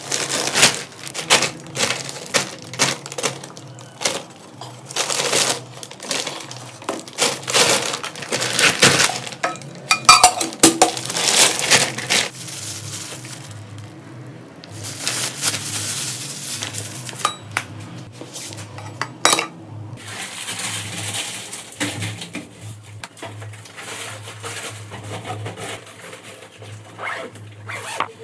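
Woven plastic sack and plastic bag rustling and crinkling as they are handled, in repeated bursts, with small clinks and knocks of a glass jar and other kitchen items.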